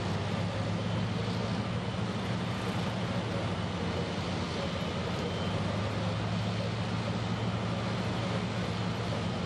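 Steady low drone of running heavy machinery, with an even hiss over it and no distinct events.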